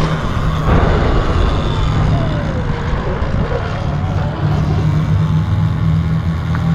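Road vehicle noise: a steady low rumble, with a whine that falls in pitch between about one and three seconds in.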